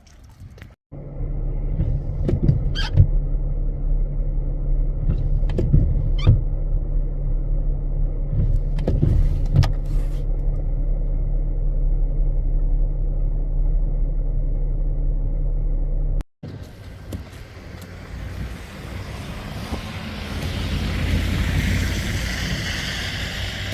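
A vehicle's steady low rumble and hum, with a few brief swishing sounds about every three seconds. After a sudden cut it gives way to a rushing noise like wind on the microphone, which swells near the end.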